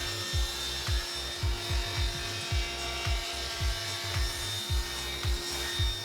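Background music with a steady beat of about two strokes a second, over a steady, even hum.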